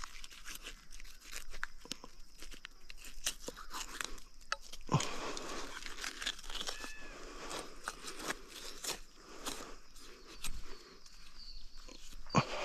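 Knife cutting and pulling meat from a deer carcass: irregular crunching and tearing of flesh and sinew.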